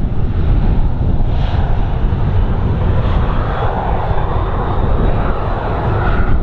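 An airliner's engines running as it passes, a broad rushing noise that builds through the middle and later part, with a faint high whine. Heavy wind buffeting rumbles on the microphone underneath.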